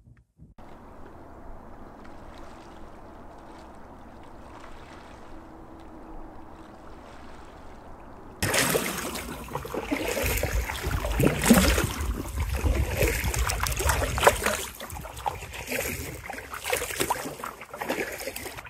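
Lake water lapping and splashing close by as a stand-up paddleboard moves along the shore. For the first eight seconds or so there is only a faint, steady water sound. After that it turns much louder and busier, with many small irregular splashes and drips.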